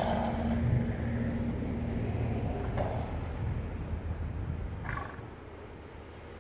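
African lion's low, rumbling growl that runs for about five seconds and then fades off.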